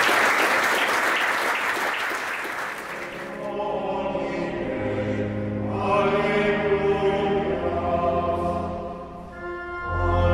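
Audience applause that fades out over the first few seconds, followed by a choir singing slow chant in long held notes.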